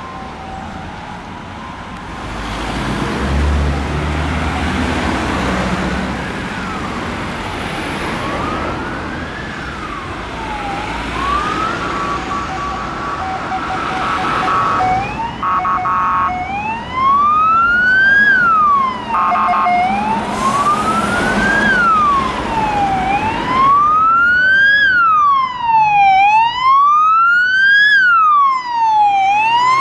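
Emergency vehicle siren wailing, sweeping slowly up and down in pitch and getting louder as it comes closer, over street traffic. Partway through, steady horn blasts sound several times, cutting in over the wail.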